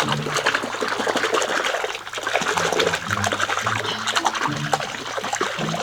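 Water running and splashing over a toy vehicle as it is washed, a continuous crackly spatter. Low background music notes sit underneath.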